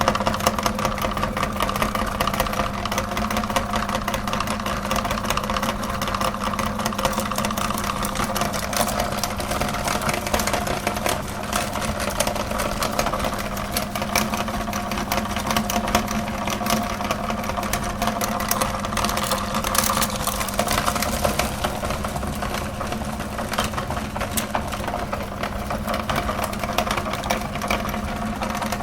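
Electric meat grinder motor running with a steady hum, its auger crunching and crackling as it grinds chocolate bars.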